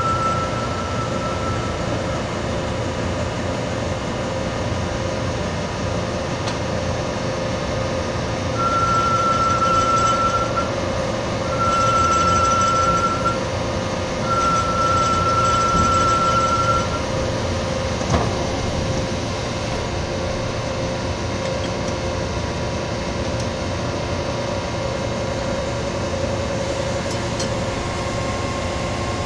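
Metal lathe running with a steady hum while cutting a shaft to length. Three times near the middle, for about two seconds each, a high steady squeal sounds as the cutting tool bites into the shaft. A single sharp click follows a little later.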